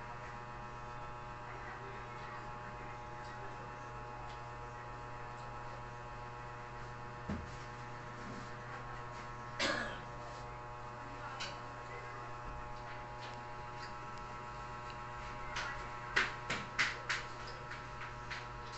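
Steady electrical hum, with a spoon or fork clinking against a plate now and then, a quick run of four clinks near the end.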